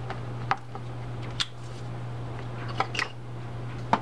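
A handful of separate sharp clicks as the crank handle is fitted onto a Mitchell Copperhead spinning reel, over a steady low hum.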